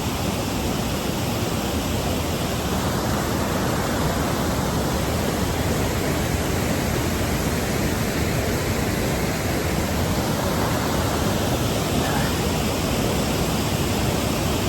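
Waterfall's water falling and splashing, a steady, loud rush.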